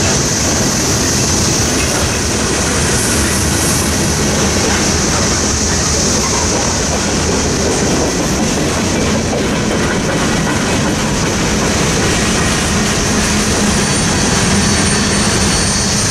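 Freight cars of a CSX mixed freight train rolling past at speed: a steady loud rumble and clatter of wheels over the rails. A faint high wheel squeal comes in during the last few seconds.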